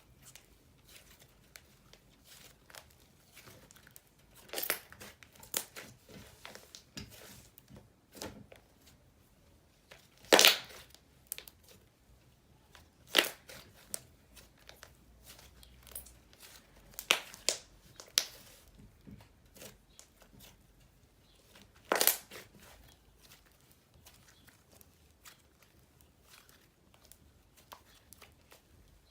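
Soft, silky slime being stretched and squeezed by hand, with scattered sharp pops and clicks over faint crackling; the loudest pops come about ten, thirteen and twenty-two seconds in.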